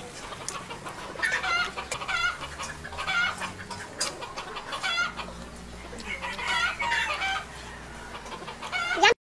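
Hens clucking in a string of short wavering calls repeated every second or so, with a few sharp clicks between them. The sound cuts off suddenly near the end.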